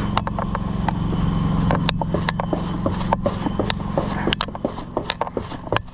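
A motor vehicle's engine running steadily with a low hum, dropping away about four seconds in, with many sharp clicks and snaps over it.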